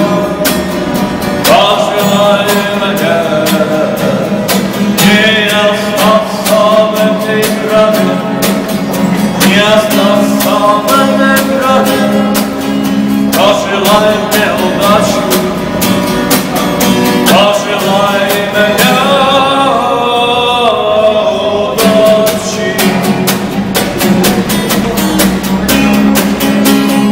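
A man singing while strumming an acoustic guitar. The strumming briefly eases off about two-thirds of the way through, and near the end the singing stops while the guitar strumming carries on.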